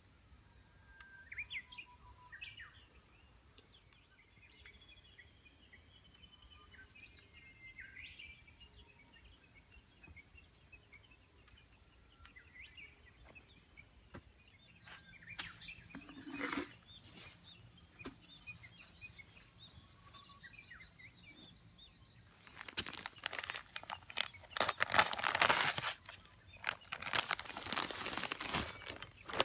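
Birds chirping faintly in the first half. A steady high-pitched whine sets in about halfway. From about two-thirds in comes loud rustling and crinkling of a plastic sack of manure being handled.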